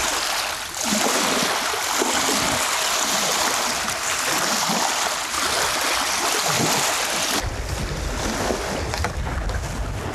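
Stormy wind and choppy waves making a steady rushing noise. About seven seconds in, a gust buffets the microphone with a low rumble.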